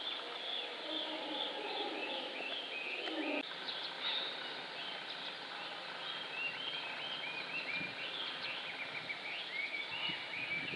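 Small birds chirping, with many short repeated notes, over steady outdoor background noise. A lower rushing noise underneath stops abruptly about three seconds in.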